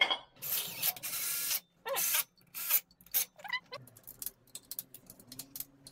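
Hand ratchet working bolts on the alternator mounting bracket of a diesel engine. A quick rasping rattle comes about half a second in, followed by a run of irregular metallic clicks, with a couple of short squeaks among them.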